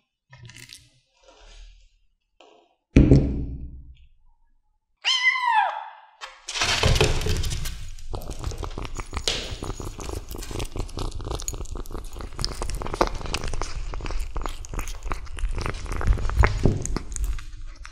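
A thump about three seconds in, then a kitten's short mew falling in pitch. From about six and a half seconds on, a kitten chews and tears at a raw chicken drumstick close up: dense, wet crackling and clicking.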